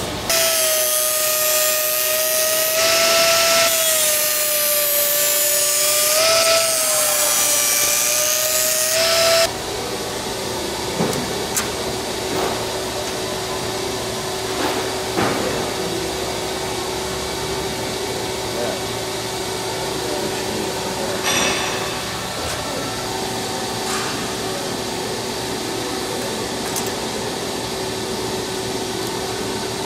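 Pneumatic right-angle air drill running with a hissing whine that wavers slightly in pitch, stopping suddenly about nine seconds in. After it stops, a steady hum and a few light metallic clicks remain.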